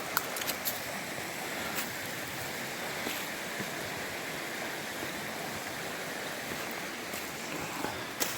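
Creek water rushing steadily, with a few faint clicks near the start and near the end.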